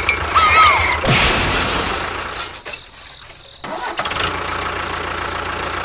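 A small engine running steadily, dropping off for about a second around three seconds in and then picking up again, with a few short high gliding squeaks in the first second.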